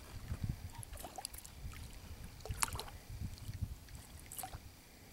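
Quiet lapping and small splashes of water against a small boat as a hooked pike rolls and swirls at the surface alongside. A few short sharp ticks or knocks are scattered through it.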